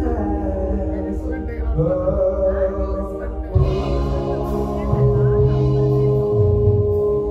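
Live pop-rock band playing: a male singer over electric guitars, keyboards and drums. The bass and drums come in strongly about three and a half seconds in, and a long note is held through the second half.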